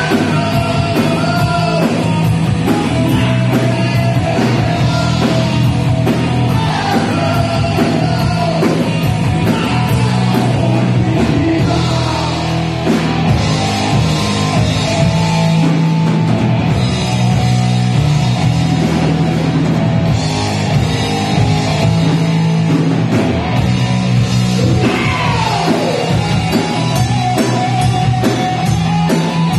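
Hard rock band playing live: electric guitars and a drum kit going hard, with a singer's vocals over them.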